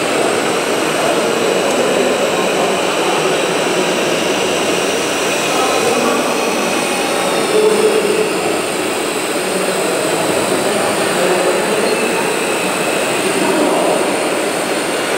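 Steady whine and hiss of a large-scale RC Liebherr 954 hydraulic excavator's pump as the machine digs and swings its loaded bucket.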